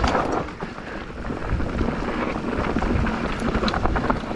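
Mountain bike riding down a dirt forest trail: wind rushing over the camera microphone and tyre noise, with frequent short clattering knocks from the bike over the rough ground.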